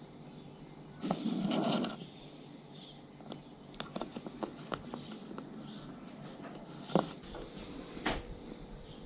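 Dry, bleached snapper jaw bones being handled and fitted together: a short scuffing noise about a second in, then scattered light clicks and taps as the bone pieces knock together and against the bench, the sharpest about seven seconds in.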